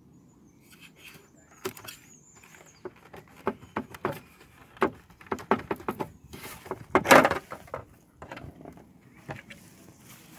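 Plastic clicks, knocks and scrapes as a Citroën C4 Picasso's rear light cluster is worked loose from its mounting clips by hand, with the loudest scrape about seven seconds in.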